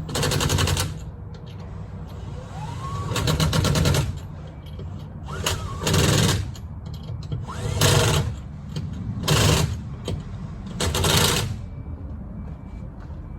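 Impact wrench firing in six short rattling bursts of about a second each, a few seconds apart, running lug nuts onto the wheels.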